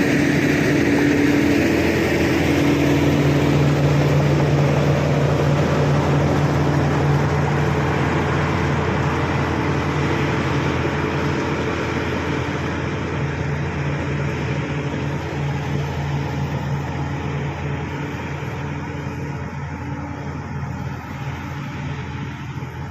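Bulldozer's diesel engine running steadily with an even drone, slowly getting quieter through the second half.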